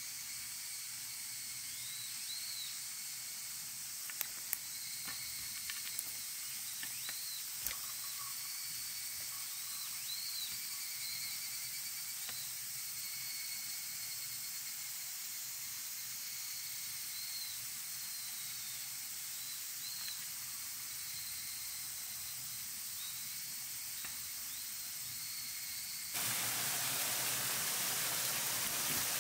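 Forest ambience: a steady high-pitched insect drone with short chirps repeating every second or two, and a few sharp clicks early on. Near the end it changes suddenly to the louder rush of flowing water.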